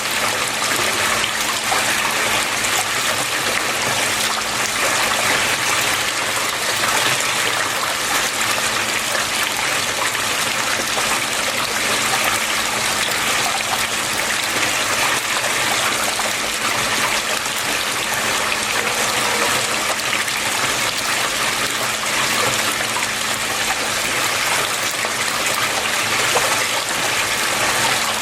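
Water flowing and splashing steadily and evenly, with no breaks, over a faint steady hum.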